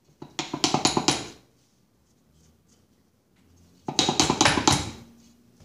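Stamped-steel drive pulley on a riding mower transaxle's input shaft being rocked back and forth by hand, rattling and clanking in quick metallic clatter as it is worked loose to pull it off. Two bursts, one starting just after the start and one about four seconds in, each lasting about a second.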